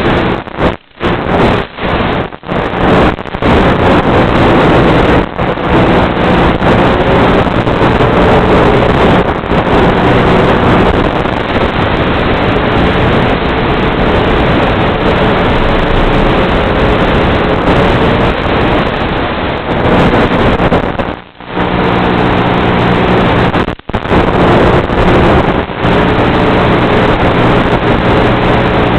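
Electric motor and propeller of an FPV aircraft, heard through its onboard camera microphone over the analog video link: a steady hum with a whine that drifts slowly up and down in pitch with throttle, under a wash of hiss and wind noise. The audio drops out briefly several times near the start and again about three-quarters of the way through, as the radio link fades at range.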